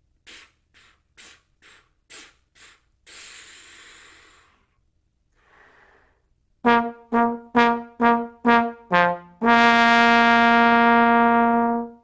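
Six quick puffs of unpitched air, each started with a 'ta' tongue stroke, then a long exhale and a breath in. A trombone then plays a tongued articulation exercise: a run of short detached notes, mostly on one pitch with a lower one near the end, resolving into a long held note of about two and a half seconds that stops cleanly.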